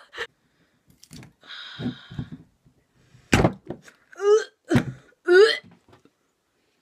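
Glass jar of green olives handled while its metal lid is twisted: two sharp knocks about three and five seconds in, with short strained grunts and gasps of effort between them.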